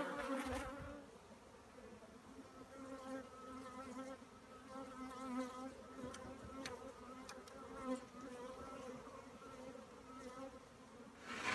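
Faint buzzing of many honey bees flying around, a hum that wavers up and down in pitch as bees pass close by, with a few light ticks.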